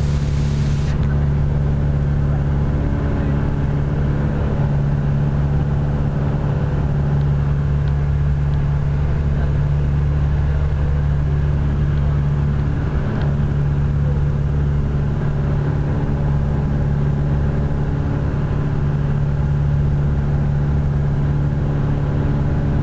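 Single-engine light aircraft's piston engine and propeller droning steadily, heard from inside the cabin in flight.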